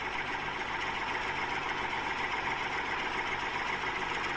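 Small DC gear motor of a homemade toy tractor whirring steadily as it drives along pulling a loaded trailer.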